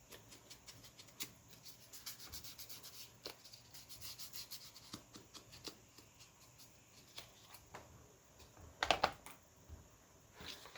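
Paper being handled and rubbed on a craft table: soft rustling and scraping with light taps throughout, and a louder rustle about nine seconds in.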